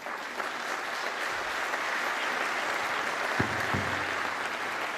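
Audience applauding: many hands clapping in an even, steady patter that swells in right at the start and holds.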